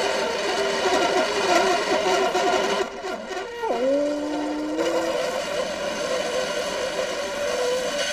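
Skis sliding fast over snow on a roof, a steady scraping hiss with a wavering tone running through it. About three and a half seconds in the hiss drops back and a whistle-like tone glides sharply down and holds low for a moment, then the sliding hiss comes back.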